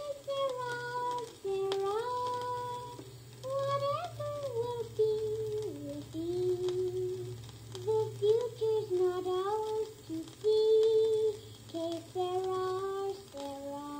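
A child singing without accompaniment, played back from a home-cut 1956 disc recording. The melody is laid over a steady low hum and scattered ticks and crackle from the worn record surface, heard through a portable record player's speaker.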